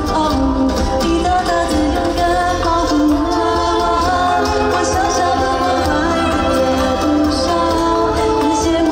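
A pop song performed live, a singer's voice held over steady band accompaniment.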